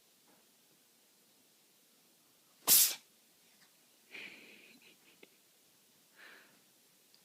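A cat sneezing in a fit of repeated sneezes: one sharp, loud sneeze about three seconds in, then two fainter sounds about a second and three seconds later.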